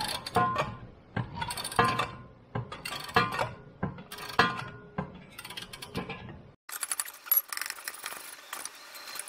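Ratchet wrench clicking as a rear wheel-bearing bolt is turned out, in repeated strokes with metallic clinks a little over a second apart. About six and a half seconds in the sound cuts to a quieter, hissier stretch with lighter, faster clicking.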